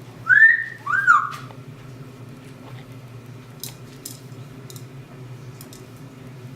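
Pet parrot whistling two quick rising notes, one right after the other, followed by a steady low hum with a few faint clicks.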